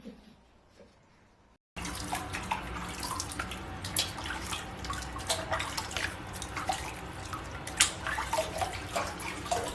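Running water splashing, with many small sharp splashes and drips, starting suddenly about two seconds in.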